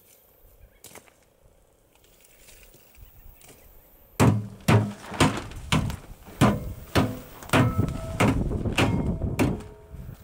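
Blade of a folding camp shovel chopping into dry dead wood: a run of sharp thunks, about two blows a second, starting about four seconds in, some with a short metallic ring.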